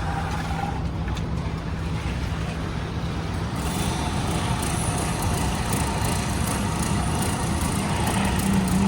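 Heavy construction-machinery engine running steadily with a low, even hum.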